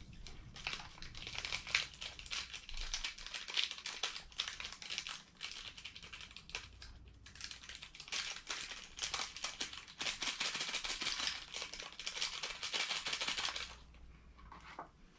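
Plastic seasoning packet from a cup of instant ramen crinkling as it is handled, a dense run of small crackles that stops shortly before the end.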